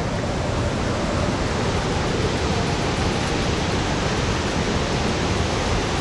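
A heavy waterfall: a steady, loud rush of falling water with no break.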